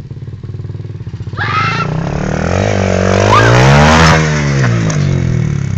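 Small dirt bike engine running, then revved hard, climbing in pitch and falling back, loudest about three to four seconds in. A short shout comes about a second and a half in, and a brief knock near the top of the rev.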